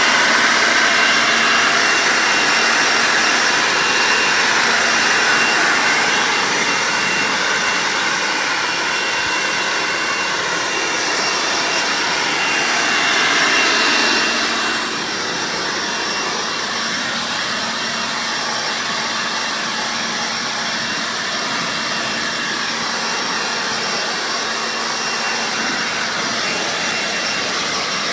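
Corded electric leaf blower running steadily, a rush of air with a thin high whine, blowing through a wet dog's coat to dry it. It drops a little in loudness about halfway through as the nozzle is moved.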